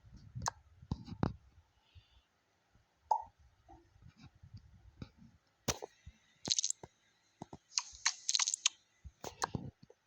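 Scattered clicks and knocks, with two short crinkling rustles about six and a half and eight seconds in.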